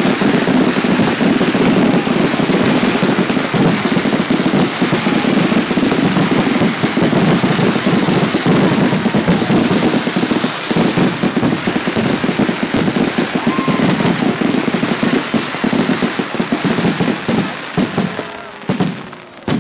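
Fireworks going off in a dense, rapid barrage of bangs and crackling, thinning out near the end into a few separate bangs.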